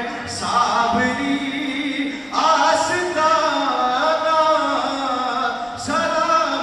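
A man singing devotional Islamic verse (naat) unaccompanied, in long phrases with held, wavering notes. A fresh phrase starts about two seconds in and again near the end.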